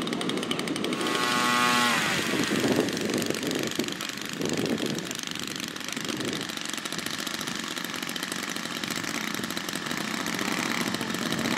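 Radio-controlled scale model aircraft engine running on the ground.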